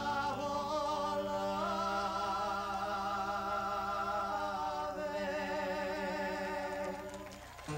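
Music of voices singing long held notes with a wavering vibrato over a steady low note. It dips near the end, then cuts off suddenly.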